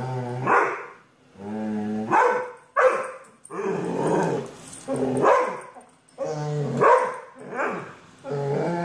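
A brindle boxer-type dog growling and barking at a robot vacuum, each low growl breaking into a louder bark, over and over about every second.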